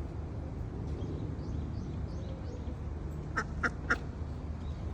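Domestic duck quacking three times in quick succession, about three and a half seconds in, over steady low background noise.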